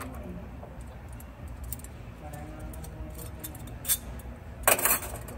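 Small metal tools and clamp hardware clinking as they are handled: a single clink a little before four seconds in, then a louder clatter of several clinks near the end, over a steady low hum.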